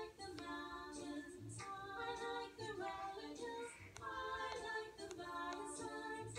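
A high-pitched voice singing a melody in short held notes, with no clear words.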